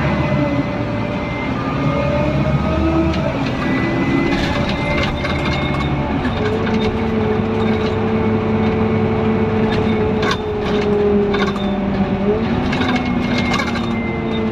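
Inside a Scania N230UD Omnidekka double-decker bus under way: the engine and drivetrain run with a steady drone and whining tones that step in pitch a couple of times. Clicks and rattles from the bus body and fittings come through the middle and later part.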